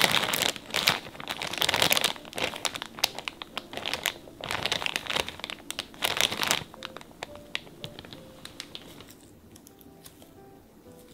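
Crinkly plastic marshmallow bag being handled by gloved hands, crackling in several loud bursts over the first six or seven seconds, then going quiet. Soft background music runs underneath.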